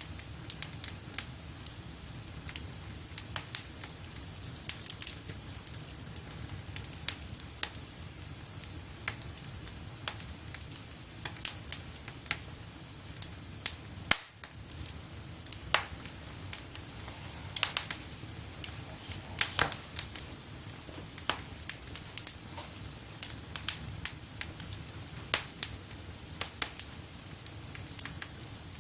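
Wood fire burning in a fireplace: a steady low rush of flame with irregular sharp crackles and pops, one much louder pop about halfway through.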